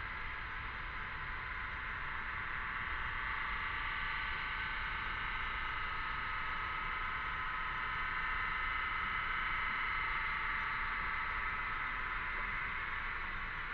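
Cicadas droning in chorus: a steady high buzz that swells gradually and eases slightly near the end.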